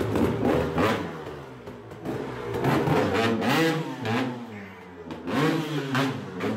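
Dirt bike engine revved in repeated short blips, its pitch rising and falling with each twist of the throttle, heard through a phone's microphone.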